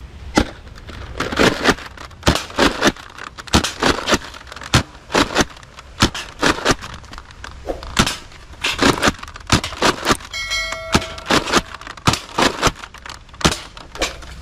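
Nerf Mega Rotofury pump-action blaster being primed and fired over and over: sharp plastic clacks and dart shots, roughly two a second. A short electronic beep sounds about ten seconds in.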